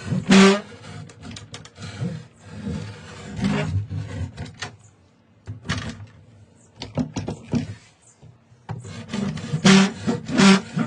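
Wooden door's bottom edge scraping across ceramic floor tiles as the door is swung back and forth, several rough scrapes, the loudest ones with a squeal: the door rubs the floor.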